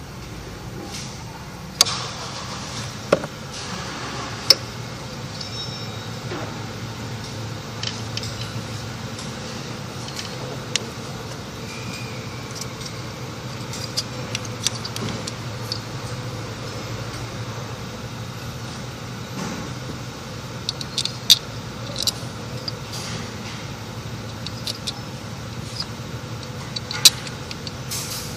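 Sharp metallic clicks and clinks of hand tools and engine parts, a dozen or so at irregular moments, over a steady low hum.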